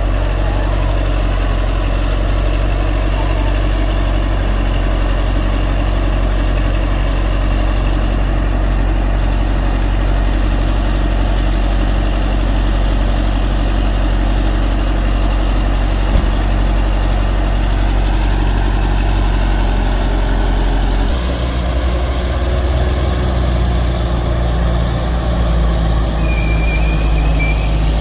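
Heavy earthmoving machine's diesel engine running steadily, with a deep, even drone. About three quarters of the way through, its note shifts to a slightly different pitch.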